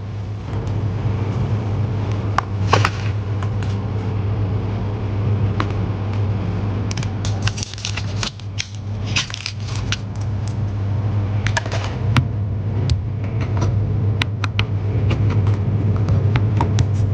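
Repeated clicks, taps and short rattles of small tools and parts being handled during laptop disassembly, over a steady low hum of a running machine. The rattling is busiest a little past the middle.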